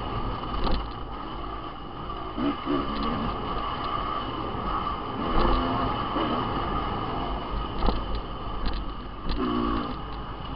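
Dirt bike engine running hard as it is ridden along a trail, the revs rising and falling several times, with wind noise and short knocks from the bike over bumps.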